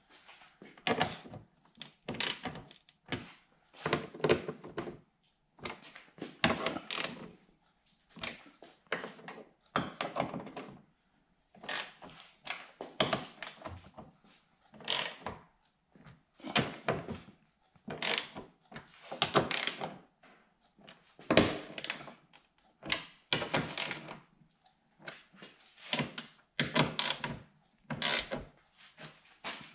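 Hand ratchet snugging up the screws that hold a front splitter to the underside of the bumper: many short, irregular bursts of ratchet clicking and knocks, with brief pauses between strokes.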